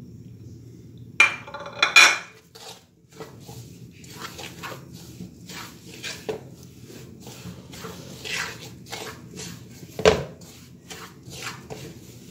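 Wooden spoon stirring and scraping a dry, crumbly flour-and-nut mixture in a metal pan, with irregular scrapes and knocks against the metal. There are louder knocks about one and two seconds in, and a sharp one near ten seconds.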